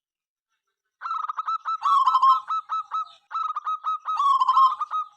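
Zebra dove (perkutut) singing: a rapid run of short cooing notes that starts about a second in, breaks off briefly past the middle, then carries on.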